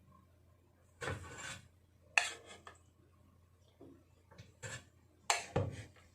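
Clinks and knocks of bacon-wrapped asparagus rolls being set into an air fryer basket: a handful of separate sharp knocks, the loudest two close together near the end.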